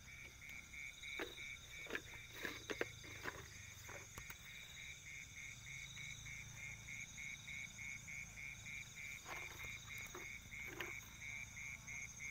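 Night chorus of frogs and insects, faint: one call pulses steadily about three times a second over continuous high-pitched insect trills. A few soft clicks and knocks come in the first four seconds and again about nine to eleven seconds in.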